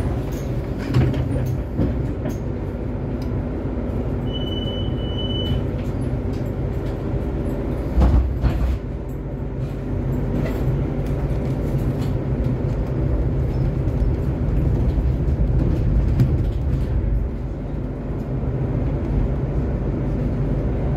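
Solaris Trollino 12 IV trolleybus under way, heard from inside the passenger cabin: steady running rumble with a held hum from the drive, and small rattles and knocks from the body. A brief high beep comes about four seconds in, and a louder jolt about eight seconds in.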